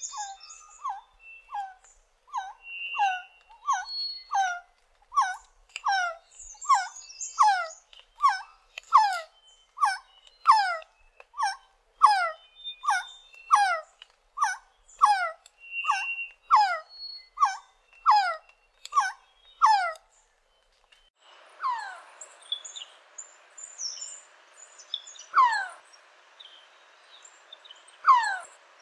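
Resplendent quetzal singing: a long series of short, descending whistled notes, about three every two seconds. After a break about twenty seconds in, a few louder, more widely spaced descending calls come over a steady hiss.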